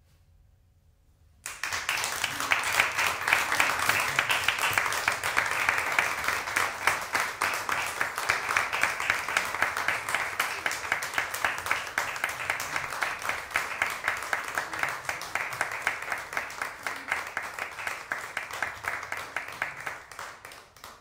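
Audience applauding, starting suddenly about a second and a half in after a moment of near silence, and dying away near the end.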